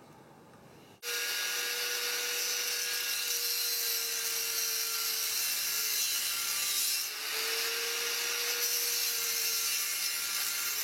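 Angle grinder with a cutting disc cutting through metal. A steady high grinding hiss rides over the motor's whine, which starts about a second in, sags briefly under load midway, then picks back up.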